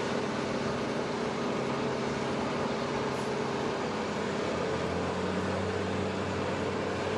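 Steady turbine noise from a C-130H Hercules on the flight line: a constant whine with a low hum beneath, the low tones shifting a little about five seconds in.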